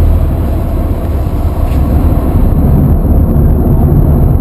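Steady low rumble aboard a fishing boat.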